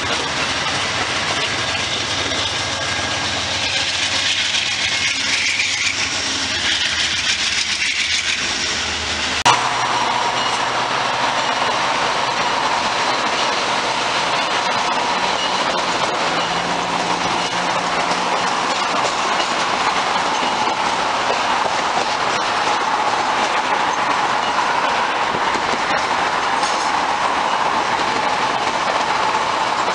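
Amtrak Superliner passenger train rolling past on the yard tracks: a steady rumble of wheels on rail. About nine seconds in the sound changes abruptly, with a click, to a steadier hiss of train noise carrying a faint high whine.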